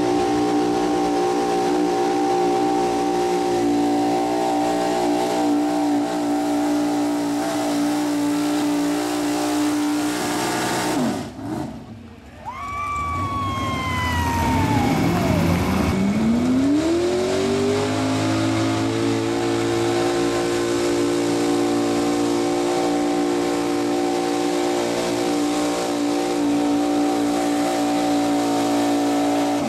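Modified gas pulling truck's engine running at high revs under load as it drags a weight-transfer sled, the pitch held steady. About eleven seconds in the revs drop sharply, then climb back over a few seconds and hold steady again.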